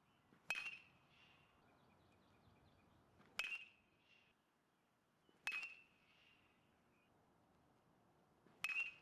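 Metal baseball bat hitting pitched balls in batting practice: four sharp pings, each with a brief ringing tone, about two to three seconds apart, the last near the end.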